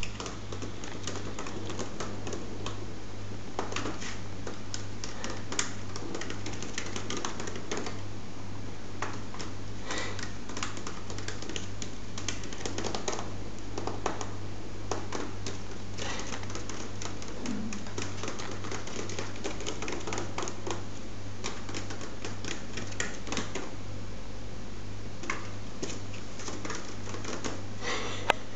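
Fingers scratching and tapping on a woven wicker lampshade: irregular dry clicks and scrapes, over a steady low hum.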